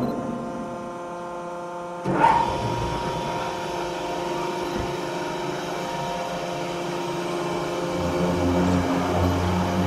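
A Transrapid steel bending switch being driven to curve a whole section of maglev guideway: a steady mechanical hum of several tones. About two seconds in, a new sound starts suddenly, and a low rumble grows near the end.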